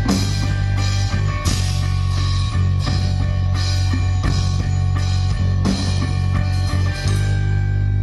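Live rock band playing loudly through a stage PA: a drum kit with cymbal crashes and electric guitars over a heavy, steady bass note. About seven seconds in, the drum hits stop and the guitars ring on.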